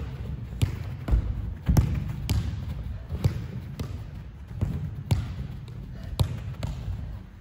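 Soccer ball being passed and received on artificial turf: a string of sharp kicks and first touches at an uneven pace, about one to two a second.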